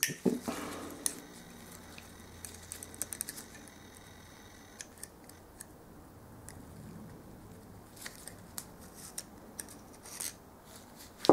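Light, scattered metallic clicks of circlip pliers and a circlip working against a steel pit bike gearbox input shaft as the circlip is taken off, with small clinks from the gears on the shaft.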